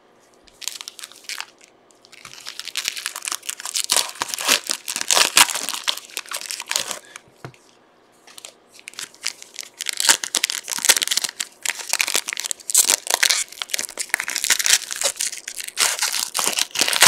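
Trading card pack wrappers being torn open and crinkled by hand, in two long bouts of dense crackling with a short pause a little past halfway.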